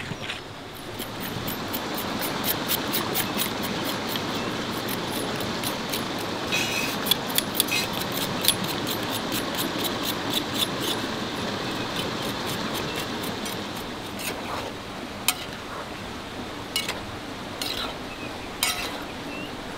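A metal fork clinking against cookware as food is worked and mixed with it. The clinks come several to the second for about ten seconds, then turn to scattered single clinks.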